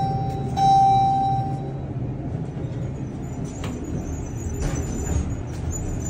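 Elevator chime ringing: a clear single-pitched ding that fades out, sounding again about half a second in. After it comes the low steady hum of the moving elevator car, with a few clicks near the end as the door opens.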